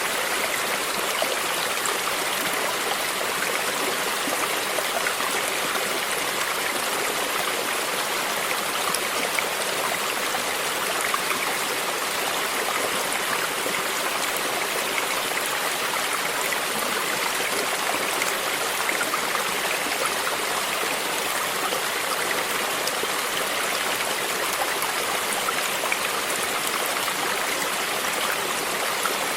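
Stream flowing steadily, water splashing and trickling over rocks with a rushing background.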